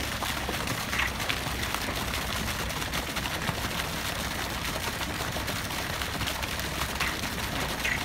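Steady, even outdoor background hiss, with a few faint short sounds about a second in and near the end; no frog calls stand out.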